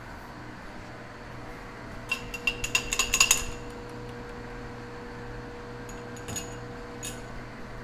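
Metal lathe running with a steady hum, and a quick run of sharp metallic clinks about two seconds in lasting about a second and a half, with a few single clinks later on.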